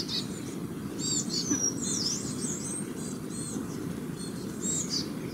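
Several songbirds chirping and calling, with many short high notes and a few sweeping phrases, over a steady low background rumble.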